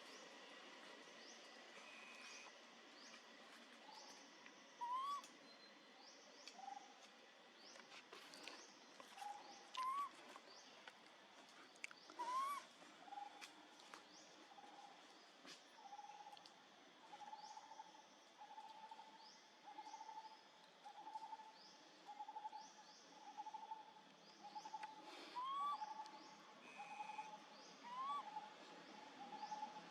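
Baby macaque giving a few short, rising crying calls, over a steady series of repeated hoot-like notes and faint high chirps.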